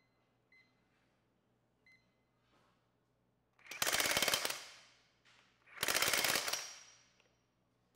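Ingersoll Rand W9691 1-inch cordless impact wrench hammering in two short bursts of about a second each, tightening a bolt on a torque dyno in its medium power-control mode (stated 400 ft-lb), which holds it back from over-torquing.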